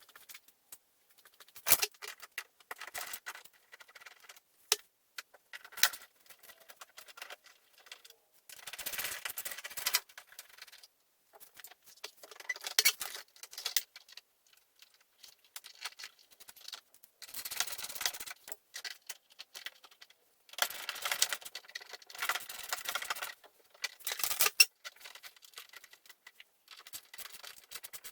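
Irregular clicks, knocks and short bursts of scraping and rustling from hands-on work fitting the fender flares: handling plastic parts, bolts and screws, with quiet gaps between.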